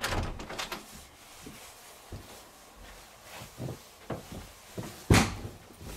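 Wooden interior door being opened, with a few soft clicks and thumps, then one sharp thud about five seconds in.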